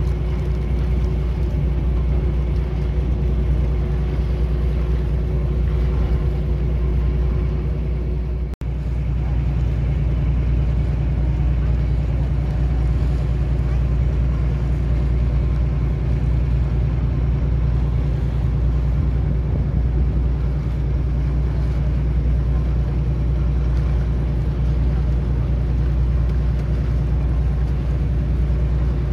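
Passenger ferry's engine running with a steady low drone, heard from the open deck as the boat moves through the water. The sound breaks off briefly about eight seconds in, then carries on.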